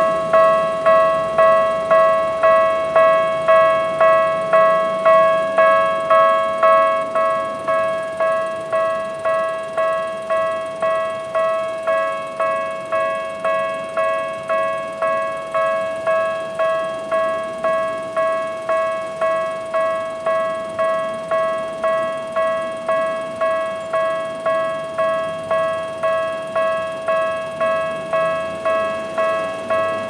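Japanese level-crossing alarm with its electronic Tokyu-type bell tone, a ringing strike repeated about one and a half times a second. It becomes quieter about seven seconds in.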